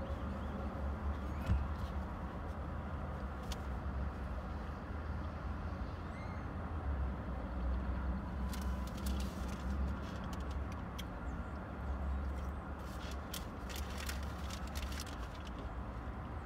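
Low steady rumble heard from inside a stationary car, with vehicles passing on the road outside. Scattered light clicks come in from about halfway through.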